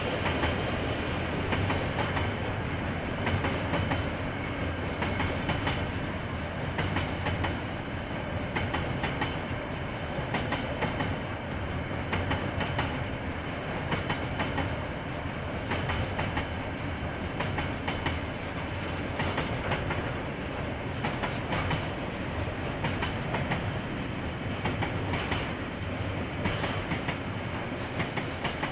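A KiwiRail freight train's wagons rolling past: a continuous rumble of wheels on rail with repeated clicks as the wheels cross the rail joints.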